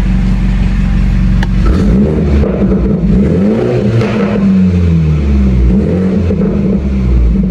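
BMW G20 330i's B48 turbocharged four-cylinder running through a full aftermarket exhaust. It idles steadily for under two seconds, then is revved several times, the pitch rising and falling with each blip. The sound is loud and a little chaotic.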